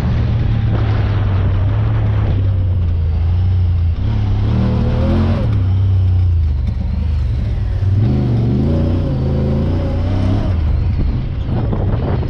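Honda Talon side-by-side's engine running over a heavy low rumble, the revs rising and falling twice.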